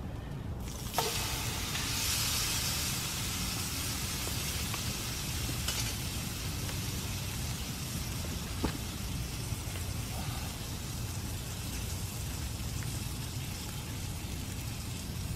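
Steak sizzling in a hot carbon steel frying pan over a wood fire, the hiss jumping up about a second in as the meat goes into the pan, then holding steady with a few faint ticks.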